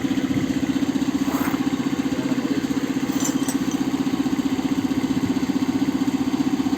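Steady drone of an idling engine with a fast, even pulse, running without change. A few faint light clicks come about a second and a half in and again around three seconds.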